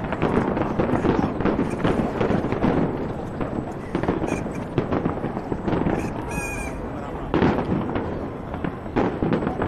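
Aerial fireworks bursting in a dense, continuous run of bangs and crackles.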